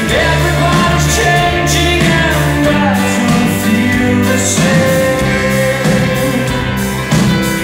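Live pop-rock band playing: a male lead vocal sung over drums with cymbals, guitar, a steady bass line and keyboards.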